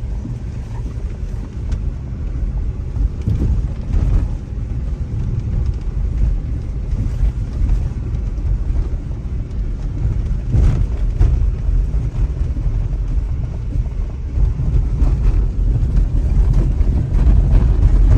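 A car driving: steady low engine and road rumble, heard from inside the moving vehicle, growing slightly louder near the end.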